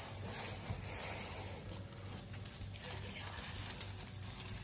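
Faint rustling and crinkling of a bubble-wrap shipping packet being lifted from a cardboard box and handled, over a low steady hum.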